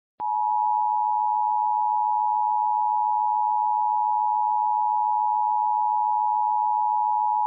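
Emergency Alert System attention signal: a steady two-tone alarm of 853 and 960 Hz sounding together. It starts just after the beginning and holds unchanged throughout, announcing a warning about to be read.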